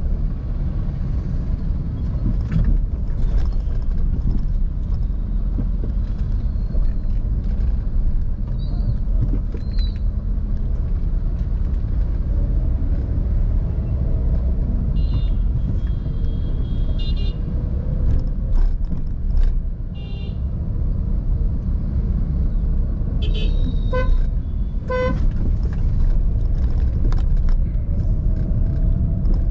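A car driving through city traffic with a steady low road and engine rumble. Vehicle horns toot several times around the middle, and a horn honks twice, about a second apart, near the end.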